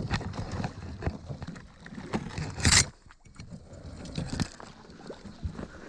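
Rustling and crackling of dry leaves and sticks with handling noise as someone moves on a creek bank, with one brief louder rush a little under three seconds in.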